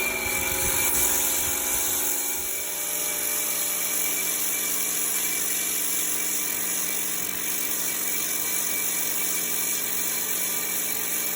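Bosch electric pressure washer running steadily: a constant motor whine with the hiss of the high-pressure water jet.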